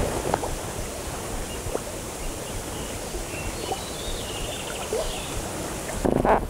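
Steady rush of river current, with a few faint light taps.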